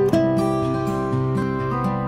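Background instrumental music led by guitar, with a steady run of held notes.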